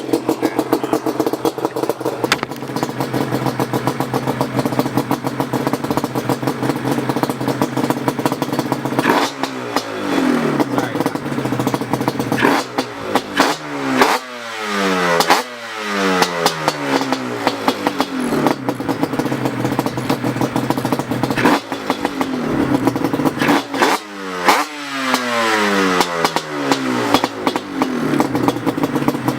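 Yamaha Banshee's two-stroke twin engine, fitted with Toomey T6 expansion-chamber pipes, idling and then revved in several sharp throttle blips, each falling back to idle. The blips come in two groups, the first about a third of the way in and the second past the middle.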